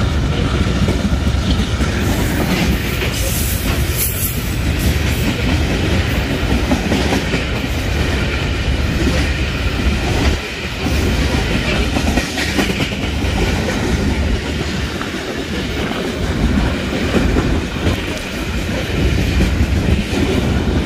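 A freight train rolling past at close range: a steady heavy rumble of the wagons, with the wheels clacking over the rail joints.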